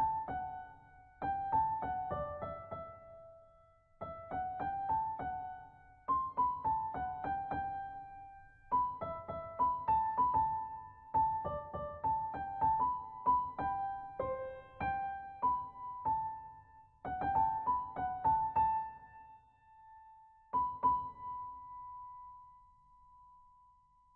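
Background music: a slow melody of struck notes that ring and fade, played in short phrases with brief pauses, the last note left to die away near the end.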